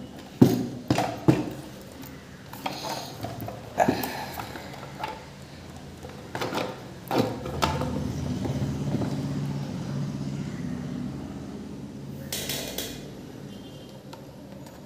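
Knocks and clicks of the opened diathermy unit's metal chassis and parts being handled, about seven sharp ones in the first half. Then a steady low hum for a few seconds, and a short rustle near the end.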